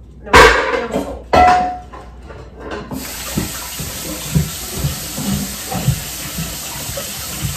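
Two loud clanks about a second apart, the second with a short metallic ring. Then, about three seconds in, a kitchen sink tap comes on and runs steadily, with a few soft knocks under the running water.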